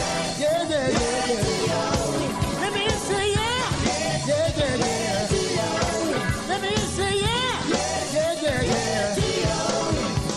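Gospel music: a young male vocal group singing with instrumental backing, the lead voice bending and wavering through held notes over a steady beat.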